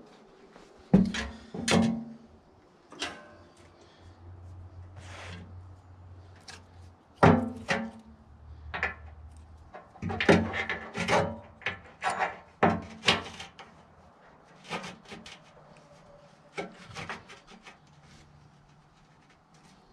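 Scattered knocks and clanks of steel being handled as a weld-on chain hook is set against the edge of a tractor loader bucket. A low hum runs between about four and nine seconds in.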